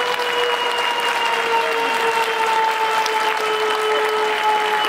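Stadium crowd applauding a converted penalty kick, a steady even clapping. A long held tone sounds over it, sinking slowly in pitch.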